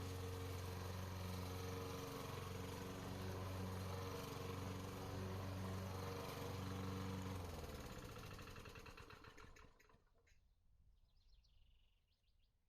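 Lawn mower engine on a radio-controlled mower running steadily, then shut off about seven seconds in, its beat slowing as it coasts to a stop over the next two seconds. Faint bird chirps follow.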